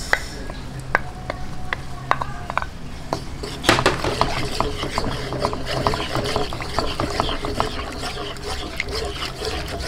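Wooden spatula stirring and scraping in a wok of banana strips and freshly added pineapple juice, over a low sizzle of the juice in the hot pan. The stirring gets louder and busier about four seconds in.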